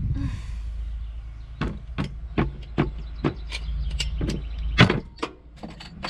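A knife blade prying and tapping at a glass beer bottle's metal cap: about a dozen sharp, irregular metallic clicks, the loudest a little before 5 seconds in.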